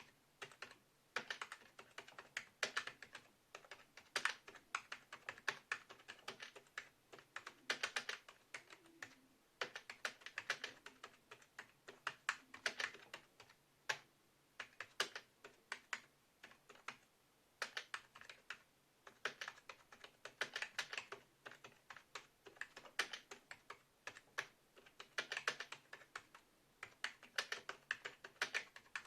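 Typing on a Hewlett-Packard E06333 computer keyboard: quick runs of key clicks in bursts, with short pauses between them.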